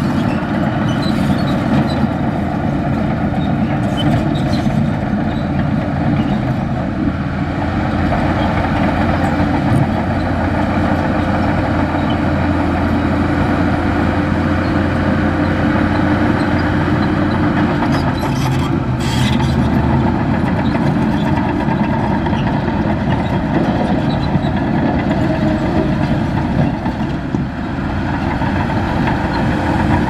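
Heavy diesel construction machine running steadily under work, with a brief clatter a little past the middle.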